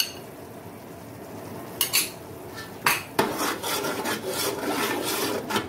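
Metal spoons clinking against a bowl and a large aluminium pot, then a slotted metal spoon stirring yogurt into thick masala, scraping and clattering against the pot from about three seconds in.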